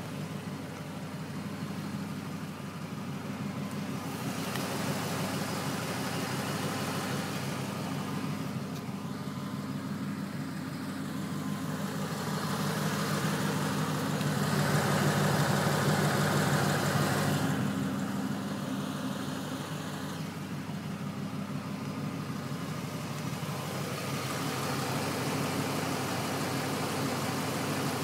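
Ford Mustang GT (S197) V8 engine running steadily, swelling louder for a few seconds about halfway through. No clicking is singled out: the owner says the clicking noise is gone now.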